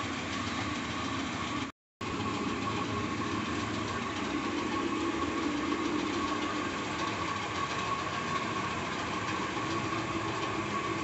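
Steady mechanical drone with a faint held tone, broken by a short gap of silence about two seconds in.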